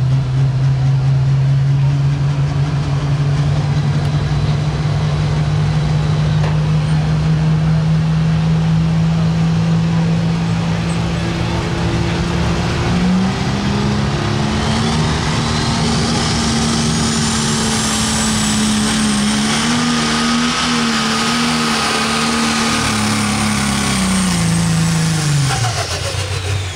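A pro stock pulling tractor's turbocharged diesel engine runs hard at a steady pitch. About halfway through the pitch jumps up and a high rising whistle comes in over it. Near the end the engine note slides down and fades as the throttle comes off.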